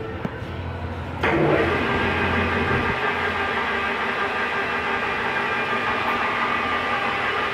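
King Industrial KC-1660GH gearhead engine lathe: about a second in the spindle starts with a sudden rise in level, then the headstock gears run steadily with a high gear whine.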